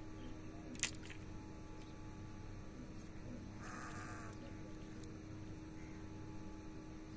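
A sharp click a little under a second in, then a short wavering animal call about four seconds in, over a low steady hum.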